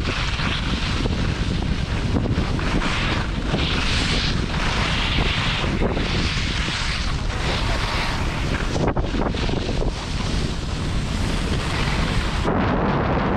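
Wind buffeting the microphone while skiing downhill, over the hiss and scrape of skis on packed snow that swells and fades with each turn.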